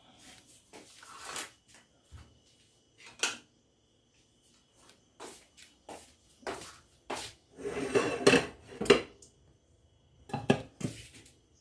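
Dishes and utensils knocking and clinking as kitchenware is handled, in scattered irregular bursts that are busiest about two-thirds of the way through.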